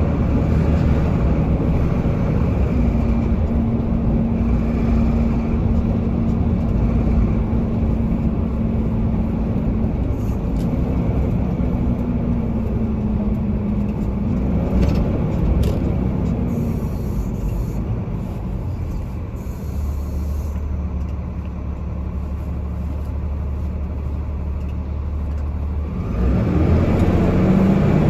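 Steady engine hum and road noise of a vehicle driving in city traffic, heard from inside the cabin; it grows louder near the end.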